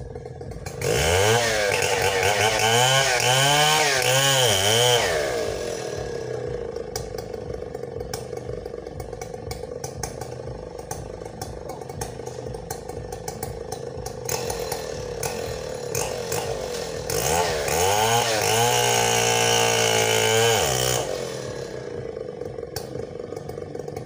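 Chainsaw idling, revved twice. About a second in, the revs rise and fall repeatedly for about four seconds. Later, from about two-thirds of the way through, the revs climb again and hold high for a couple of seconds before dropping back to idle.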